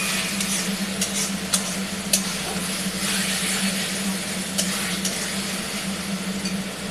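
Onion and spice masala for a chicken curry sizzling in a frying pan as it is stirred, with a few sharp clicks of the spatula against the pan and a steady low hum underneath.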